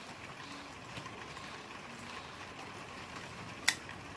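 Steady hiss of rain, with one sharp knock near the end.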